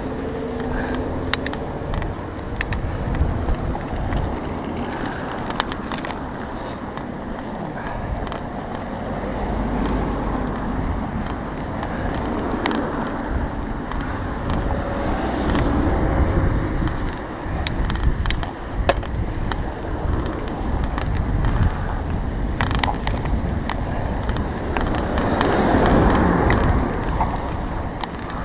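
Bicycle ridden over a fresh snow-covered road: steady tyre and wind noise with frequent small clicks and rattles from the bike, getting louder for a few seconds near the end.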